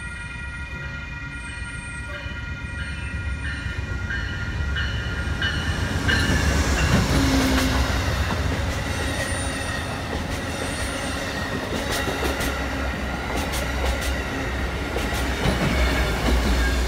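A train passing close by, growing louder over the first few seconds and then staying loud. It makes a low rumble and rushing noise, with repeated clicks of wheels over rail joints. Steady high tones run underneath.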